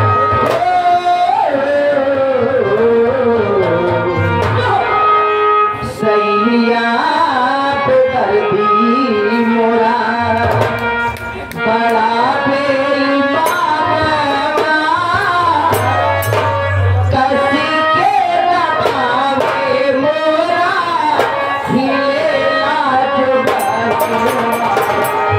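A singer sings a melodious Hindi folk song through a microphone and PA, the voice gliding and wavering, over dholak hand-drumming. Near the end a fast run of sharp, clicking percussion joins in.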